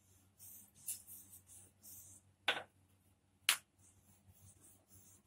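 Wooden rolling pin rolling over flour-dusted dough on a counter: soft hissing swishes, repeating, with two sharp clicks about two and a half and three and a half seconds in.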